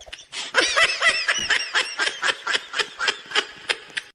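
A person snickering: a long run of short laugh bursts, several a second.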